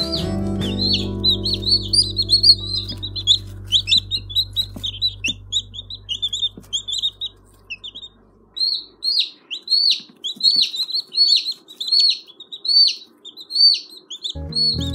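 Baby chickens peeping over and over in quick, high chirps that slide up and down. Background music fades out over the first half, and music comes back in just before the end.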